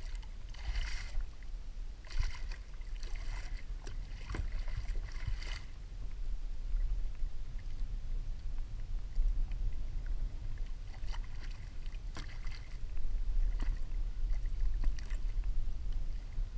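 Water splashing beside a kayak as a hooked mahi-mahi thrashes at the surface and is grabbed by hand, in several bursts during the first six seconds and again later on, over a steady low rumble.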